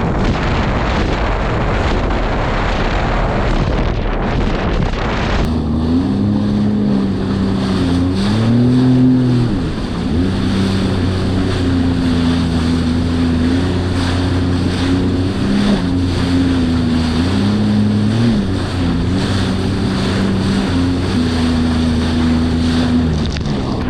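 Jet ski engine running under way, its pitch rising and falling as the throttle changes. For the first five seconds or so, wind and spray rushing over the microphone cover it.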